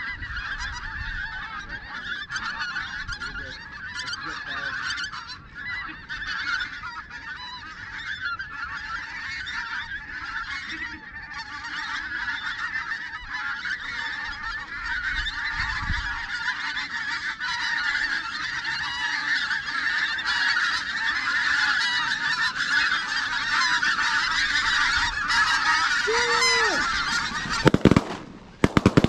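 A large flock of pink-footed geese calling overhead, a dense chorus of honks that grows louder as the birds come in low. Near the end, several shotgun shots go off in quick succession.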